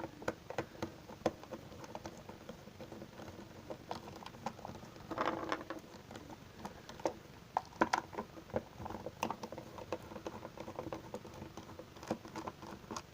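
Small plastic battery tester being handled and taken apart by hand: irregular light clicks and taps, with a short scraping rustle about five seconds in.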